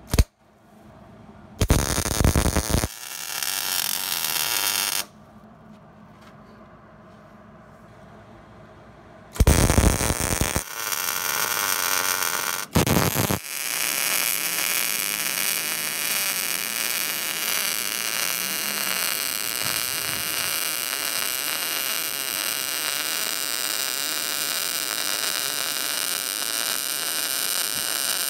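Wire-feed MIG welder arc welding steel leaf spring perches onto an axle tube: several short welds of a second or two, separated by pauses, in the first half, then one unbroken weld from about halfway on.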